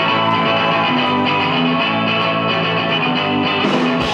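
Live rock band opening a song: electric guitar playing the intro with sustained, ringing notes over a repeating bass line.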